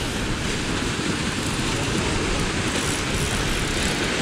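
Steady rushing noise of ocean surf churning against the foot of a rocky sea cliff, mixed with wind rumble.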